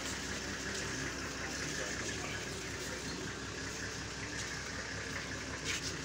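Steady murmur of a large outdoor crowd: many voices blending into an indistinct wash with no single voice standing out.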